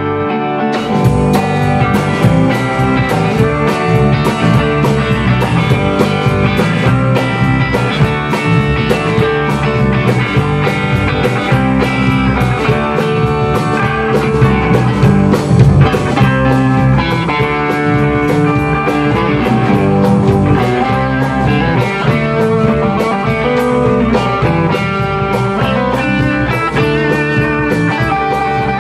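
A rock band playing an instrumental passage live, with distorted electric guitars over a drum kit and no singing. The drums and cymbals come in fully about a second in.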